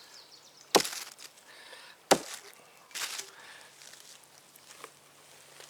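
Small hatchet chopping through raw pork ribs and bone, two sharp, loud blows about a second and a half apart, followed by a softer scrape or rustle about three seconds in.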